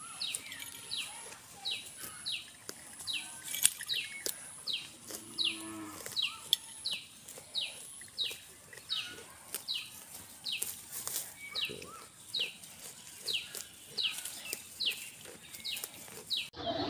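A bird calling over and over, a short falling note about twice a second, with a thin high insect whine coming and going.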